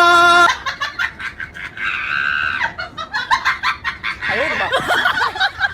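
A loud air horn of the train-horn kind, one steady chord that cuts off about half a second in. Clattering and a few short, high, squawk-like cries follow.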